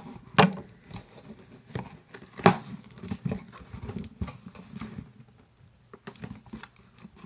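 Plastic air-pillow packing crinkling and rustling as it is handled, with two sharp knocks, one about half a second in and a louder one about two and a half seconds in.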